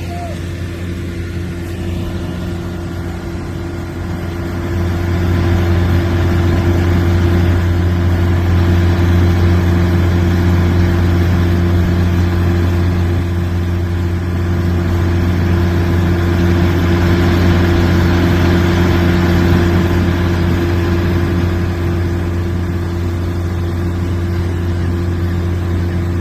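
Threshing machine running steadily with a low, even drone, getting louder about five seconds in and holding there.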